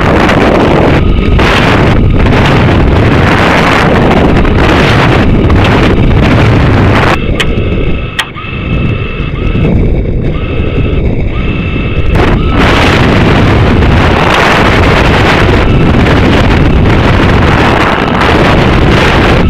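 Air rushing past the falling Stiga sounding rocket, loud, rough buffeting on its onboard microphone. The rushing drops back for a few seconds about a third of the way in, leaving some faint steady tones and a single click, then returns as loud as before.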